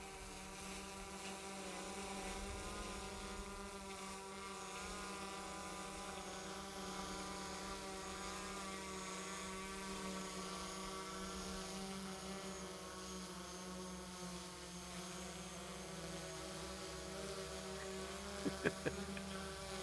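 DJI Mavic 3 quadcopter, loaded with extra cameras, hovering close by: a steady propeller whine of several tones that waver in pitch as the motors adjust. A few sharp clicks near the end.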